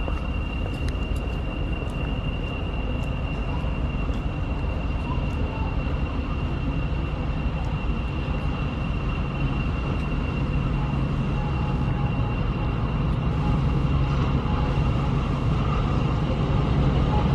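Class 52 'Western' diesel-hydraulic locomotive running as it rolls slowly into the platform. Its low engine rumble grows louder toward the end. A steady high-pitched tone sounds throughout, with a few light clicks near the start.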